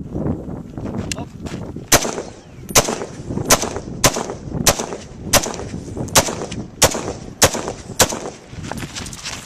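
Semi-automatic rifle fired in a steady string of about ten shots, roughly one every two-thirds of a second, starting about two seconds in, with a few fainter shots before them.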